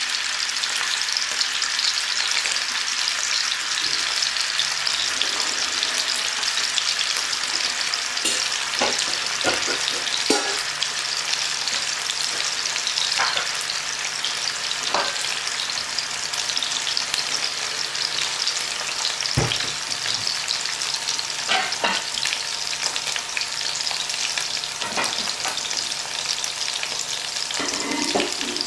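White German sausages sizzling in shallow oil in a nonstick frying pan: a steady sizzle with scattered pops of spitting fat every few seconds.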